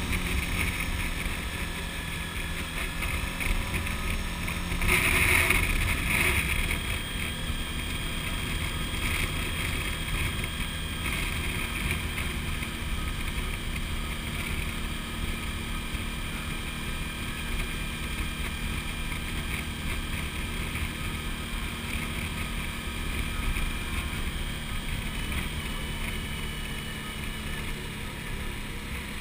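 Motorcycle riding at a steady cruise: a Suzuki V-Strom's V-twin engine running under wind rush, picked up by a camera mounted on the bike. A brief louder rush about five seconds in.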